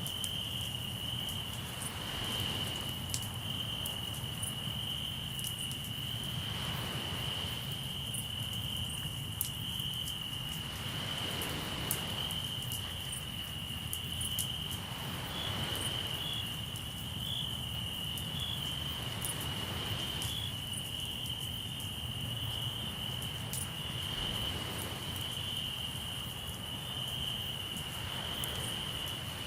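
Crickets chirping in a steady, unbroken high-pitched chorus, with a campfire crackling in scattered sharp pops, sea waves washing in every four to five seconds, and a low rumble of surf underneath.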